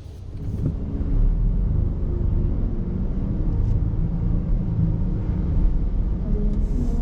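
A steady low rumble that swells about a second in and then holds.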